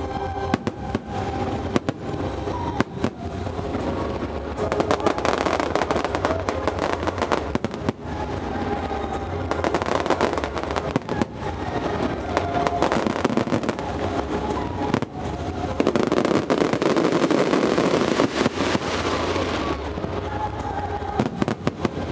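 Fireworks display: aerial shells bursting in quick succession with dense crackling. The barrage thickens in waves and is heaviest about three-quarters of the way through before easing off.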